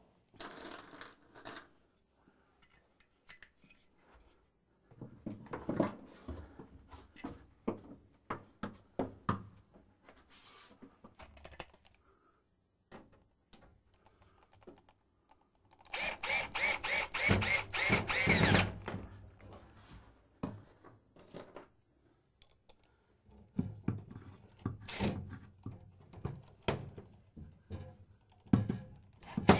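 Knocks and taps of wooden panel pieces being handled and fitted. About halfway through, a cordless drill runs for two or three seconds, driving a screw into a cedar heater cover; more knocks follow near the end.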